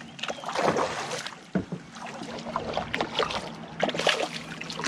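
Hooked redfish thrashing and splashing at the water's surface beside a boat as it is reeled in, in several irregular bursts.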